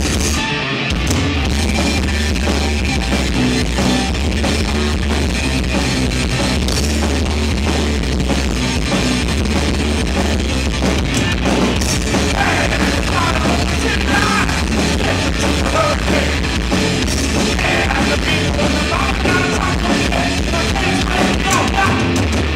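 A rock band playing loudly live, with electric guitars over a heavy bass line and a drum kit.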